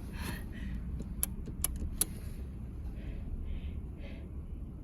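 Keys jangling, with a few sharp metallic clicks about a second in, over a low steady rumble of wind and handling on the phone's microphone.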